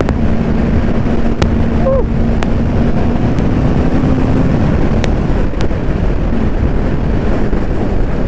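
Heavy wind rush on the microphone of a Honda CBR650R ridden at high speed, with the bike's inline-four engine holding a steady note that fades out about halfway through as the bike slows. A few faint clicks are heard along the way.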